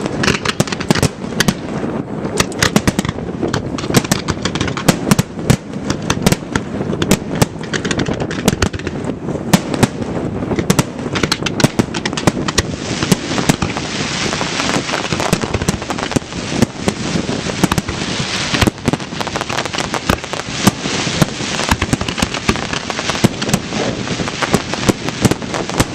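Fireworks display: a rapid, continuous barrage of bangs and crackles, turning into a denser crackling hiss from about halfway through.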